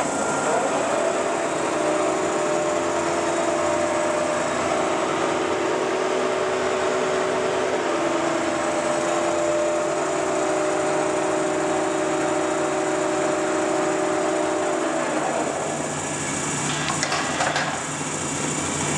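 Monarch 18-inch engine lathe's headstock running under power: a steady gear whine over the motor hum. About fifteen seconds in the whine fades out, and a few clicks follow near the end.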